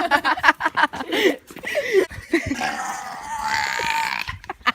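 Young people laughing in short, choppy bursts, then one long, steady vocal sound lasting nearly two seconds, starting about two and a half seconds in.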